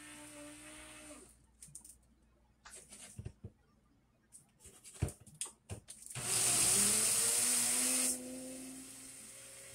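A few clicks and knocks, then an electric mixer grinder runs in one short burst of about two seconds, grinding soaked rice into flour, its motor pitch rising as it spins up.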